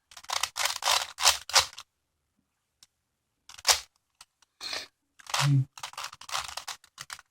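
A plastic 5x5 Rubik's cube being twisted by hand, its layers turning with quick clicks and clacks. A burst of clicking gives way to a pause of about two seconds, then a single click and another run of turns.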